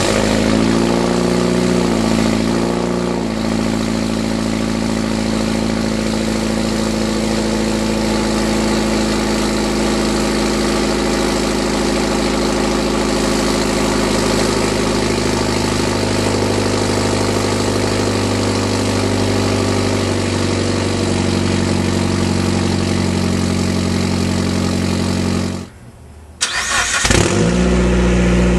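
Mitsubishi Lancer Evolution VIII's turbocharged 4G63 inline-four idling loudly through a 3-inch stainless straight-pipe exhaust with no catalytic converter, resonators or mufflers. The idle wavers for the first few seconds after starting, then holds steady. Near the end it cuts out for under a second and starts up again.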